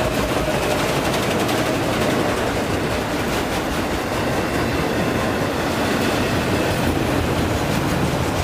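A train passing close by: a steady rumble of wheels on the rails with faint clicking over the rail joints.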